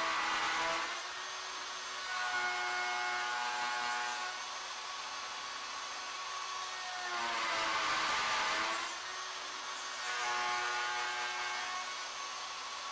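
Router on a CNC-driven Legacy Ornamental Mill, cutting beads and coves in a square wooden leg blank with a profile bit. The motor's steady whine dips and recovers in pitch as the bit bites in. Louder swells of cutting noise come about a second in and again from about seven to nine seconds in.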